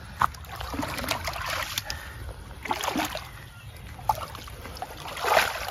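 Shallow muddy water sloshing and splashing in irregular small bursts as someone wades and gropes through it by hand for fish, with a louder splash near the end.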